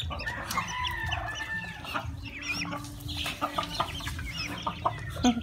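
Backyard chickens clucking, with chicks peeping and a long rooster crow about half a second in, plus a few sharp taps in the middle.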